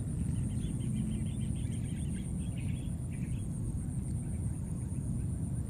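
A fast run of short, high chirping calls from an animal, lasting about three seconds, over a steady low rumble.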